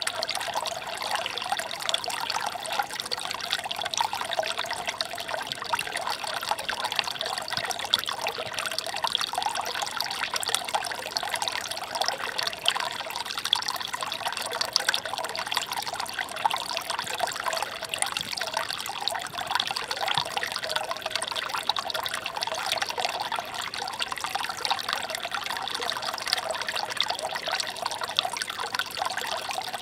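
Shallow water trickling steadily over a stony bed: a continuous babble of many small gurgles and splashes with no pauses.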